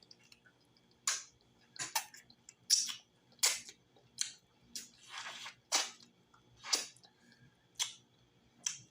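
Close-miked wet chewing, lip smacking and sucking on tender, gelatinous cooked cow foot. Sharp wet smacks come about once a second, with a longer slurp about five seconds in.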